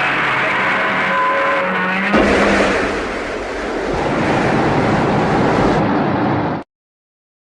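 Music with held notes, then about two seconds in a loud, steady rushing noise cuts in suddenly and drowns it out. It cuts off abruptly to dead silence near the end.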